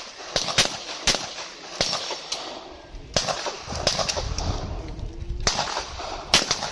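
Handgun shots fired in a practical shooting stage: about a dozen sharp reports, singly and in quick pairs, with a couple of short pauses between strings.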